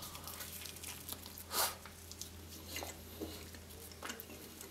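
Close-miked chewing of a thin-crust dessert pizza topped with Nutella, strawberries and marshmallow: soft, wet mouth sounds and small clicks, with one louder smack about one and a half seconds in.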